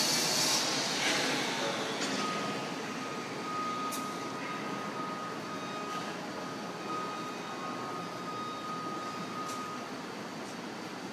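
Excavator-mounted pile-driving rig: a loud hissing machine noise dies away over the first couple of seconds, leaving a steady machinery drone with a steady high tone through most of the rest and a couple of faint clicks.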